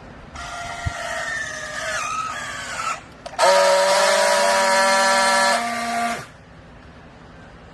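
Hydraulic baler's pump whining under load, wavering at first, then a louder steady whine for about three seconds that stops abruptly.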